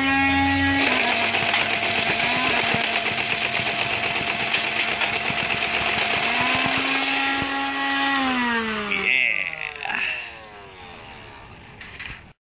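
Modified Nerf Vortex Nitron motorized disc blaster firing full-auto: its motors whine at speed, then a dense rattle of firing runs for about six seconds. When the firing stops the whine rises in pitch and then falls away as the motors spin down.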